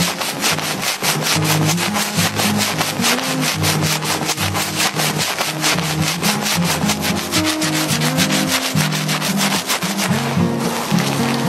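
Gloved fingertips scrubbing a shampoo-lathered scalp and hair in quick, even rubbing strokes, about five a second, with a brief pause near the end. Soft background music plays underneath.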